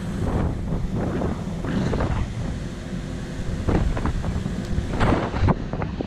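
Wind buffeting the microphone, with several louder gusts, over a steady low rumble.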